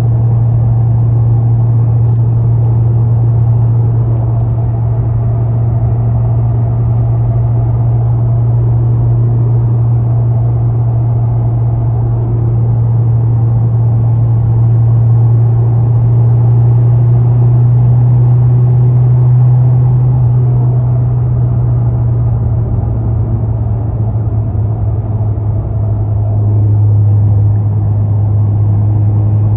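Steady low drone inside a 2020 Honda Civic Si on the move, swelling slightly a little past the middle.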